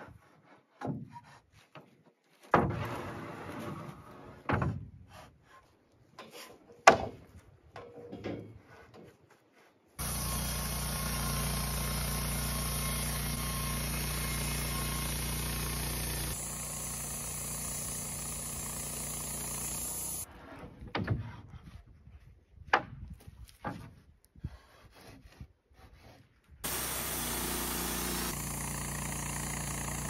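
Sawn Douglas fir boards knocking and clattering as they are laid onto a stack, then the Wood-Mizer LT15 portable bandsaw mill running steadily with its band blade cutting through a log. The machine stops after about ten seconds, more wooden knocks follow, and the mill starts running again near the end.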